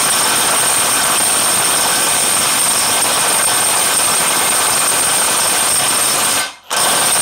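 JLD cordless 48 V impact wrench, set to 1000 N·m, hammering continuously on a large M24 nut, with a steady high whine. It stops briefly about six and a half seconds in, then starts again.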